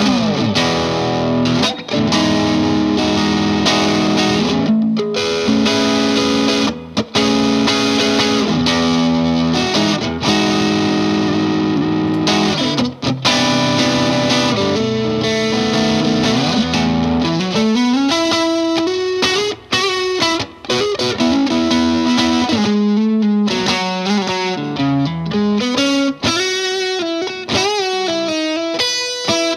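Electric guitar, a Fender Custom Shop '57 Stratocaster, played through an MXR Duke of Tone pedal in its overdrive (OD) mode into the clean channel of a Vox AC15 amp. It plays full chords, then from a little past halfway a single-note lead line with string bends.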